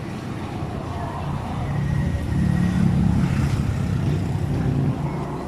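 A road vehicle's engine running close by, its low rumble swelling about two seconds in and easing off near the end, as it passes.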